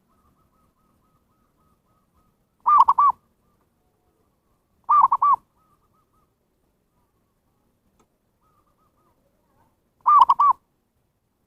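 Zebra dove (perkutut) cooing as a lure call: three short phrases, each a quick run of about three arched notes, with faint rapid little notes in between.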